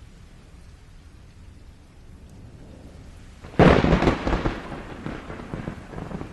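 Thunderstorm: steady rain, then a sudden close thunderclap a little over halfway through, cracking sharply and rumbling away with crackles.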